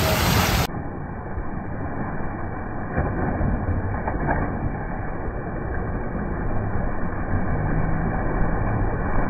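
A brief rush of water, then a steady muffled low rumble with a few faint knocks, all high sound gone.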